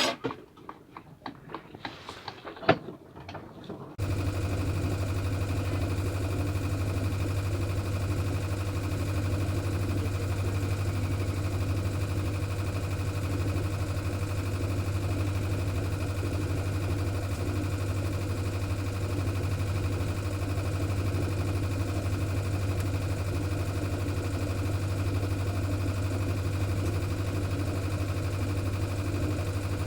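A few sharp knocks and clicks, then about four seconds in a steady, even mechanical drone starts abruptly and holds unchanged, like a motor running at constant speed.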